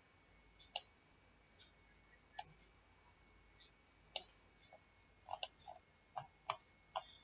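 Computer mouse clicking, about ten short clicks: a few spaced a second or more apart, then quicker ones over the last two seconds.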